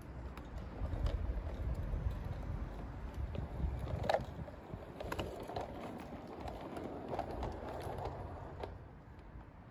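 Garden-railway model locomotive and mail van running past on outdoor track: a low rumble of wheels and drive with scattered clicks, loudest about four seconds in as the train goes by, then fading.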